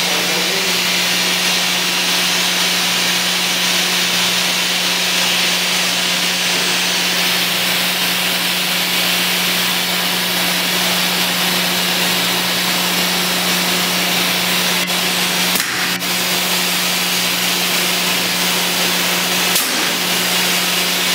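SNX nVision contour edgebander running while a curved panel edge is banded: a steady motor hum with an even hiss over it. Two short clicks sound in the last quarter.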